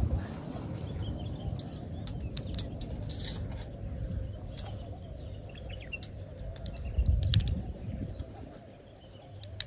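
Outdoor ambience with faint, scattered bird chirps. A low rumble swells up near the start and again about seven seconds in.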